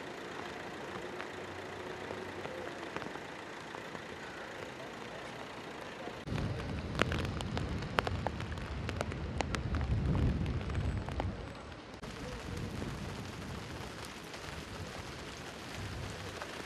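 Heavy rain falling on pavement, a steady hiss with sharp drops ticking close by. About six seconds in, a low rumble swells up for several seconds and then dies away.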